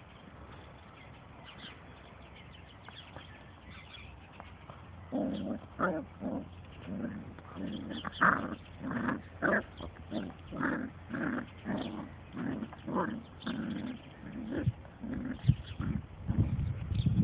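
Dandie Dinmont terrier growling in play: a run of short, repeated growls about two a second, starting about five seconds in. A few low thumps follow near the end.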